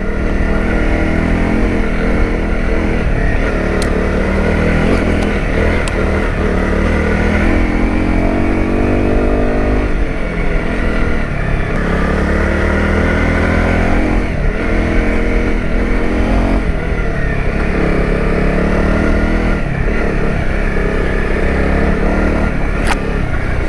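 Honda CRF250 Rally's single-cylinder four-stroke engine being ridden off-road, the revs rising and dropping back again and again as the throttle is worked, over a constant low rumble.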